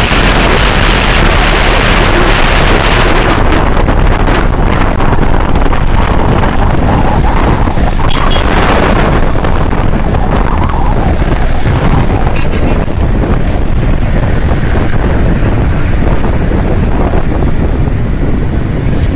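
Steady rush of wind on the microphone of a moving motorcycle, over road and vehicle noise. The rush is brightest in the first three seconds, then turns duller.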